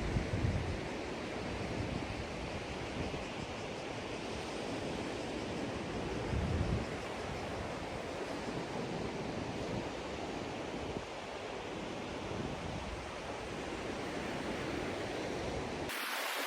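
Steady rush of surf on a sandy beach with wind buffeting the microphone, in two low gusts: one just after the start and one about six and a half seconds in. Near the end the sound changes abruptly: the low rumble drops out and the hiss gets brighter.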